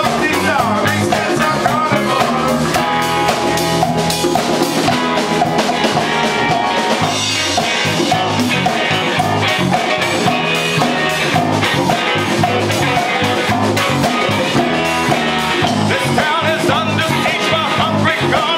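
Funk band playing live in rehearsal: drum kit, congas, electric bass, guitar and keyboard together in a steady groove.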